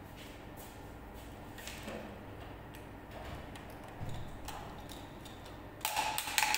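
Light plastic clicks and handling noises from endotracheal tube and syringe, then a short, louder plastic rustle near the end as a stylet is picked up.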